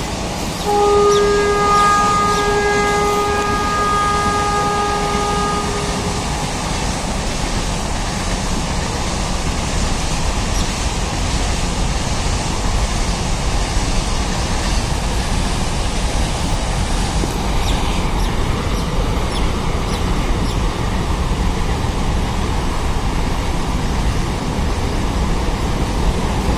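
WAG-7 electric locomotive's horn blowing one long steady note from about a second in until about six seconds in, then the steady rumble of a freight train's container wagons rolling past.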